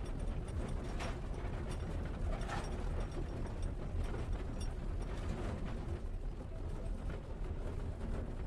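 Cab noise of a Great Western mogul steam locomotive under way: a steady low running sound with repeated metallic clanks and rattles from the footplate.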